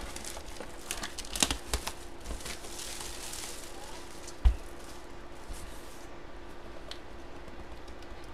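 Cardboard of a Hit Parade jersey box being handled and opened. There are scattered taps and scrapes, a soft sliding rub of cardboard from about two and a half to four seconds in, and a dull knock about four and a half seconds in as the box is set down or bumped.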